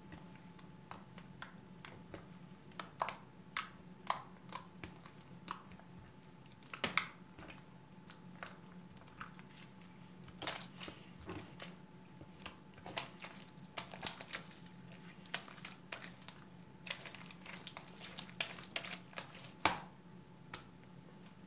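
Sticky clear slime being worked by hand, giving irregular small clicks and crackles as it is pulled and pressed.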